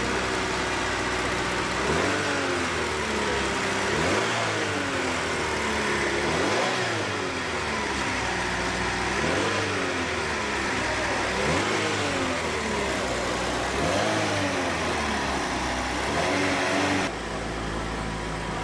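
Hyundai EF Sonata DOHC 16-valve four-cylinder engine running after being started, its throttle blipped by hand about seven times so the revs rise and fall back every couple of seconds. The sound eases to a steady run near the end. The engine starting and running shows the fuel-system circuit has been put right.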